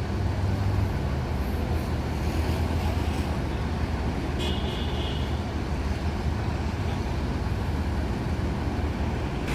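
Diesel bus engine idling with a steady low rumble. A brief high-pitched tone comes in about four and a half seconds in.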